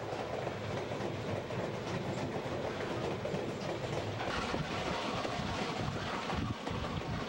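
Steam-hauled passenger train running, heard from aboard a coach: the steady rumble of wheels on the track with the clickety-clack of the wheels over rail joints.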